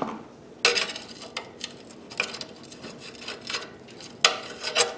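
A long-shafted screwdriver clinking and scraping against the metal of a small Briggs & Stratton engine as it is worked into the carburetor's mounting bolts. There are about half a dozen irregular sharp clinks and short scrapes.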